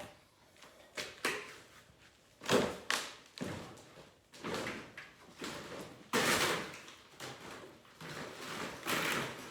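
A stone windowsill being pulled out of a demolished wall: a string of irregular scrapes and knocks as the heavy stone is worked loose, the longest scrape a little after six seconds in.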